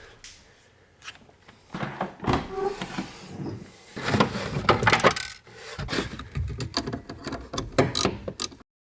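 Irregular knocks, clicks and rubbing from handling and working on car interior parts. The sound cuts off abruptly to silence near the end.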